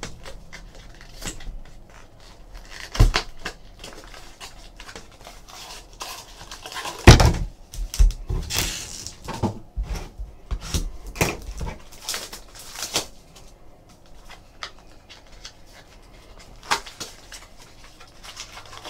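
A cardboard trading-card mini box and its foil-wrapped packs handled on a tabletop: rustling, scraping and light taps, with a sharp knock about three seconds in and a heavy thump about seven seconds in.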